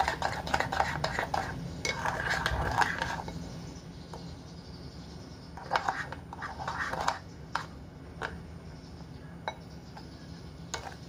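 A metal spoon stirring thick char siu marinade in a bowl, scraping and clinking against the bowl's sides as the sugar is mixed in to dissolve. It is busy for the first three seconds, then comes in short bursts and single taps.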